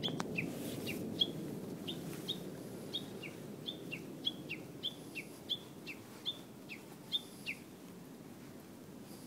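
Japanese bush warbler calling: a quick run of short, sharp notes alternating between a higher and a lower pitch, two or three a second, which stops near the end. A low steady background rumble underneath.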